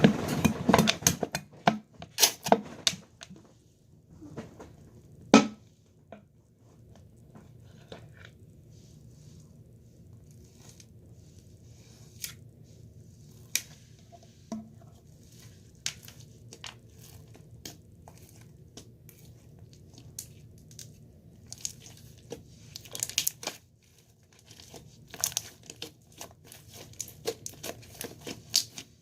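Irregular crackling and crinkling handling noises, in clusters of sharp snaps, over a faint steady low hum.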